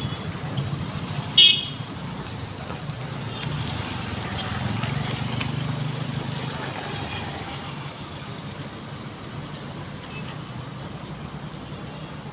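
Excavator diesel engine running steadily, with one short vehicle-horn toot about a second and a half in that is the loudest sound.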